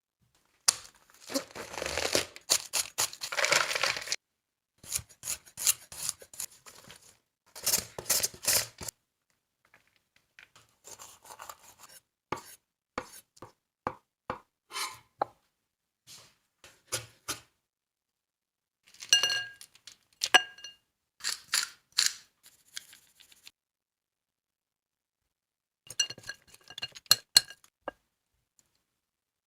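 Knife cutting crunchy raw vegetables such as cabbage and radishes on a cutting board, in several separate bursts of crisp chopping and crunching with pauses between them. Later come a few clinks with a ringing tone, as of a utensil against a dish.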